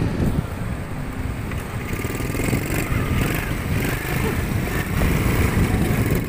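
Quad bike (ATV) engine running steadily as the ATV rides along.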